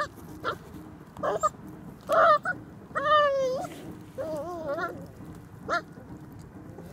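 Puppy whining: about six short, high, wavering whines, with a longer falling one about three seconds in.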